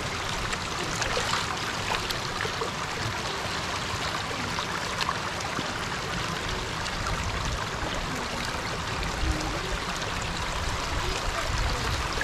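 Shallow stream running steadily over stones, with small splashes from fish being cleaned by hand in the water.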